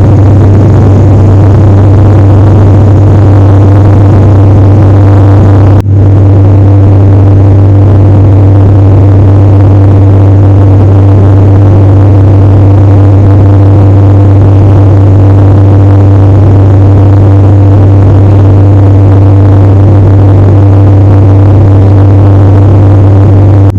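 Steady, loud engine drone of an airliner heard from inside the passenger cabin, with a strong low hum and fainter steady tones over a rushing noise. There is a brief dropout about six seconds in.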